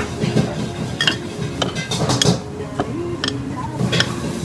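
Tableware clinking: about half a dozen sharp, separate clinks of a ceramic spoon and dishes over a few seconds, with faint background music.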